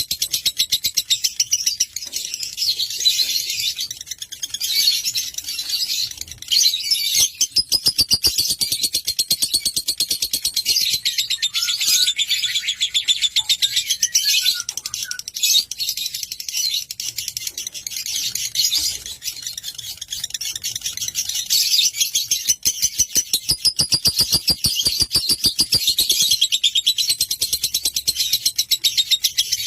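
Lovebird chattering in a long, unbroken run of rapid, high-pitched chirps.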